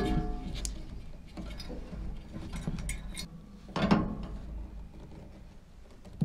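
Metal tools and fittings being handled at a gas valve: scattered clicks and clinks, a sharp metallic knock with a brief ring at the start, and a louder clank about four seconds in as an open-end wrench is brought to the fitting.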